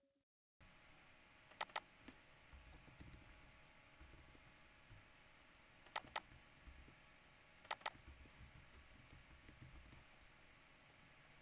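Faint typing on a computer keyboard, broken three times by a sharp double click, about two, six and eight seconds in; the double clicks are the loudest sounds.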